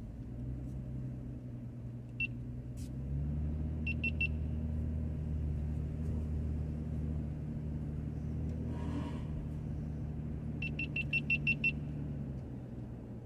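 Car engine running at low speed, heard from inside the cabin. Its hum steps up in pitch about three seconds in and drops back near the end. Over it a GoPro camera beeps: once, then three quick beeps, then a run of about seven quick beeps near the end.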